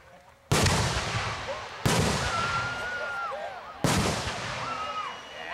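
Aerial firework shells bursting overhead: three loud booms, about half a second, two seconds and four seconds in, each trailing off in a long echoing rumble.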